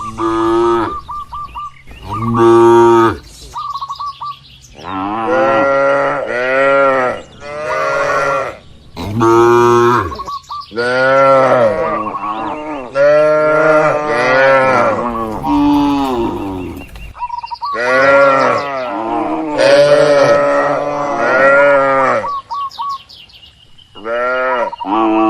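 Cattle mooing over and over, about ten long calls that rise and fall in pitch, some following close on one another, with short pauses between.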